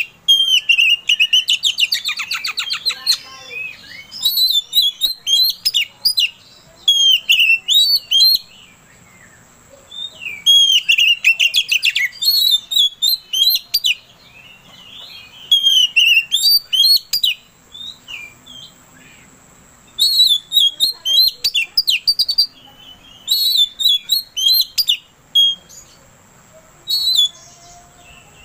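Oriental magpie-robin singing loudly in repeated phrases of varied whistles and chattering notes, each lasting one to three seconds with short pauses between, including a fast clicking rattle about two seconds in.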